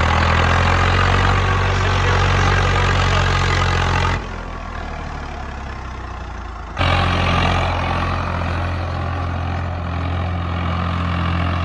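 Swaraj 735 FE tractor's three-cylinder diesel engine running with a steady deep drone. About four seconds in it drops to a quieter level for a couple of seconds, then comes back loud.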